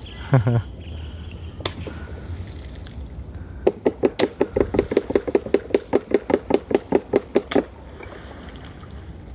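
Fisherman's pole beating the water surface in a fast, even run of sharp slaps, about six a second for roughly four seconds, starting a little past the middle. The beating drives fish into an encircling net. Earlier there is a single knock over a low steady rumble.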